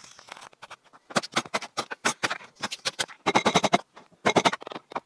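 Metal scratching and scraping across wood in short, quick strokes, in a run of bursts with brief gaps between them.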